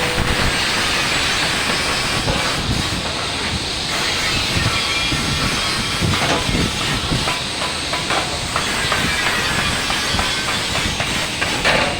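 Electric welding arc, a steady crackling hiss.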